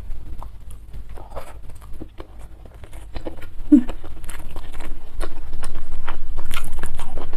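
Close-miked chewing and mouth sounds of someone eating: many small wet clicks and smacks, growing louder about halfway through, over a steady low hum.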